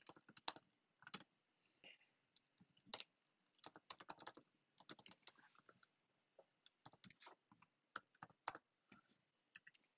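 Faint typing on a computer keyboard: irregular keystrokes, some single and some in short quick runs.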